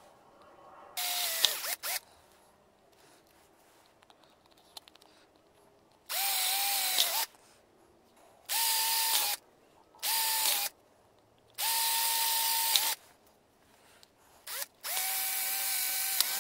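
Electric drill boring holes through a plastic pipe end cap: six short runs of the motor's steady whine, each about a second long, with quiet pauses between them.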